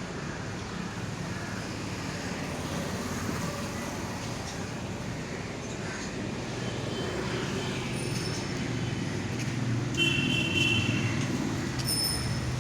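Steady road traffic noise with vehicle engines running, growing a little louder toward the end, with a brief high beep about ten seconds in.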